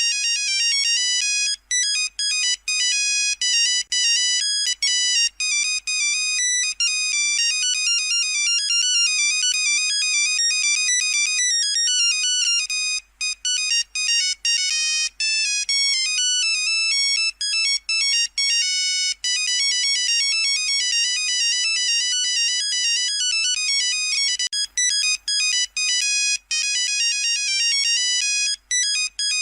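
Nokia 3310 monophonic ringtone playing: a fast melody of short, bright, electronic beeping notes, with brief gaps between phrases.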